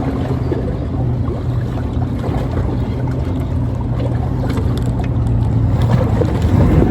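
Steady low motor hum mixed with wind noise on the microphone, growing slightly louder near the end.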